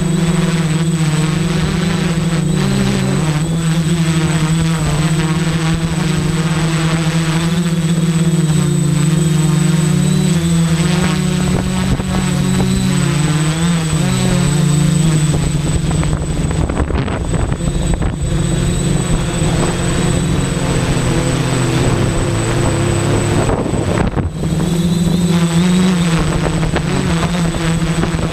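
Quadcopter's electric motors and propellers buzzing in flight, heard up close from the onboard camera. The pitch wavers as the throttle changes, drops lower for a couple of seconds near the end, then rises again.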